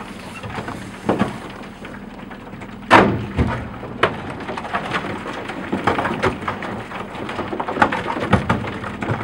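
Brash ice crackling and popping irregularly around a boat's hull, with a sharp knock of ice against the hull about three seconds in and smaller knocks after it, over a steady low hum.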